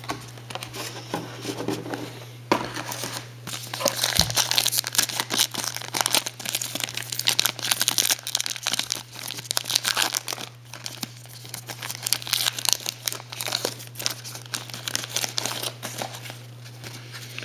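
Foil trading-card pack wrapper crinkling and tearing as it is pulled open by hand, a dense crackle that starts about two and a half seconds in and keeps on.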